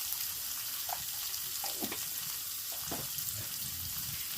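Hot oil sizzling steadily in a pan as ground chili and turmeric fry in it, with a few short sharp sounds over it about one, two and three seconds in.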